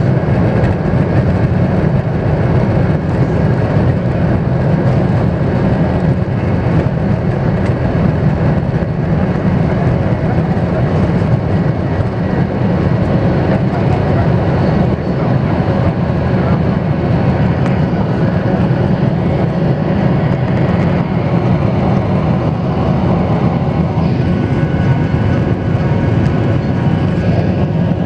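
Boeing 737 twin jet engines at takeoff power, heard inside the cabin over the wing: a loud, steady rumble with faint whining tones through the takeoff roll and lift-off.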